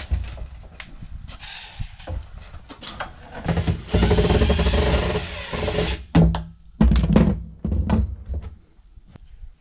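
Cordless drill running for about two and a half seconds, backing the screws out of a plywood floor board inside a plastic barrel. Then several heavy thumps as the board is worked loose.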